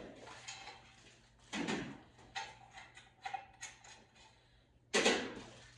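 Parts being handled and fitted during a washing machine install: two solid clunks, one about a second and a half in and one near the end, with light clicks and rattles between them, over a faint steady hum.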